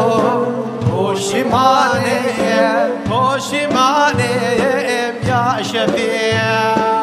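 Music from a devotional song to the Prophet: a voice singing long, ornamented melismatic phrases over sustained instrumental accompaniment.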